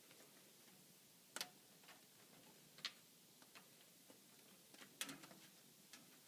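Faint, scattered light clicks and taps of plastic membrane plates and support rings being handled and fitted together on a plate-and-frame ultrafiltration module. The sharpest come about a second and a half in and just under three seconds in, with a small cluster about five seconds in, over quiet room tone.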